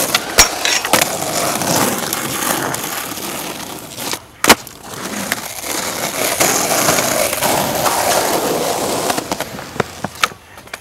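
Skateboard wheels rolling on asphalt and concrete, broken by sharp clacks of the board: two close together in the first second, a loud one about four and a half seconds in after a brief lull, and another at the very end.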